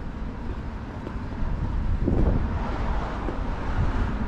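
Outdoor street ambience: wind buffeting the microphone with a low rumble that swells into a louder gust about two seconds in, over light road traffic.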